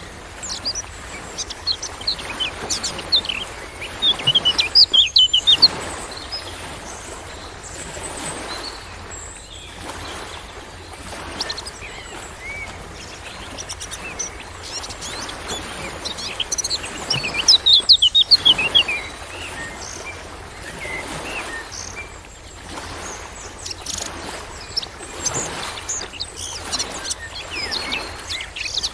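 Many birds chirping and calling in short high notes, thickest in two dense flurries about four to six seconds in and again around seventeen to nineteen seconds in. Underneath runs a continuous wash of rushing noise that rises and falls.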